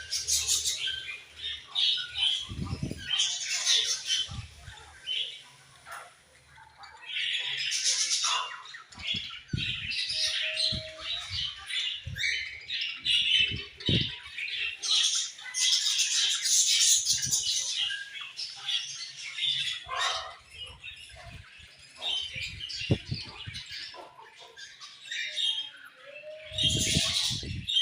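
A flock of budgerigars chattering, with overlapping high chirps and squawks that thin out briefly about six seconds in, mixed with occasional low thumps.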